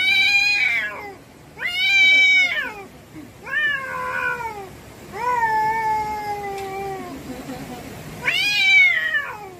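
Domestic cats in a nose-to-nose standoff, yowling: about five drawn-out, rising-and-falling cries with short gaps, the longest near the middle lasting about two seconds and sliding slowly down. These are aggressive warning yowls, with the orange cat's fur puffed up.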